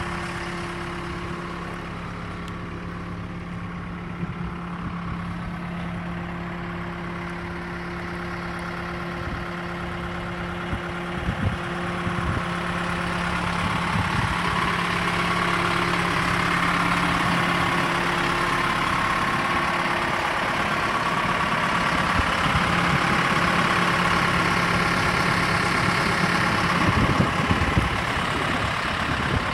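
Case 580 Super L backhoe loader's diesel engine running steadily as the machine is driven, growing louder about twelve seconds in. A few short knocks come through, about eleven seconds in and near the end.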